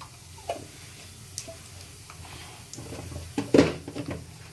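Whole spices and asafoetida frying softly in hot oil in a kadai, stirred with a wooden spatula that taps and scrapes the pan, with one louder stroke about three and a half seconds in.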